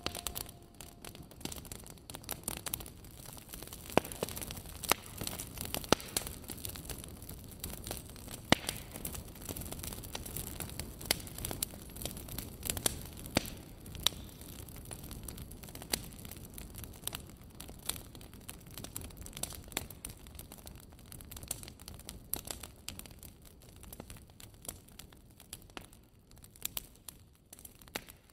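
A small fire of twigs crackling, with irregular sharp pops over a soft steady hiss.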